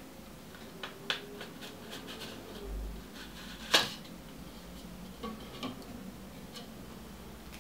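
Small clicks and knocks from a Canon EF 100-400mm telephoto zoom lens and its plastic lens hood being turned over and handled, with a low dull bump and then one much sharper click a little under four seconds in.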